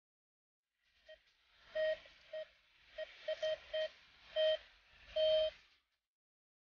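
Metal detector beeping in one steady, buzzy mid-pitched tone: about nine irregular beeps of varying length starting about a second in, the longest near the end, as its search coil passes over a metal target in the soil.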